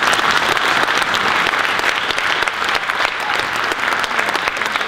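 Audience applause: many hands clapping steadily at the close of a talk.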